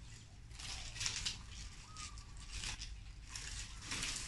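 Fresh coconut palm leaflets rustling and swishing as they are bent and pulled through a hand weave, in a few short bursts.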